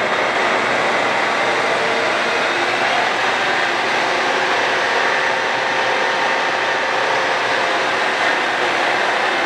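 ACER Dynamic 29 x 60 engine lathe running with its spindle at 1200 RPM, the top speed of its high range. It makes a steady mechanical whir from the headstock gearing, with faint steady whining tones over it.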